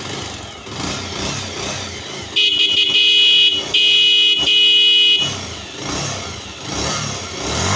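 Bajaj Pulsar 150's single-cylinder four-stroke engine running just after starting, swelling as the throttle is opened. A loud electric horn sounds in three blasts in the middle.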